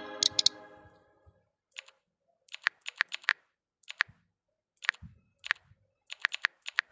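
A ringing electronic chime fades out in the first second. Then come short, sharp clicks and taps in small clusters, about one cluster every second.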